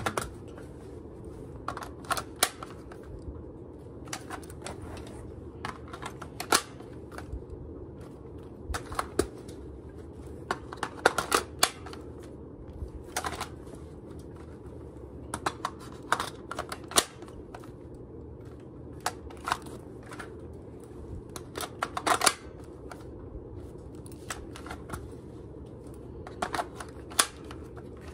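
Airsoft rifle being reloaded: irregular sharp clicks and clacks of magazines going in and out and the gun being handled, some in quick clusters.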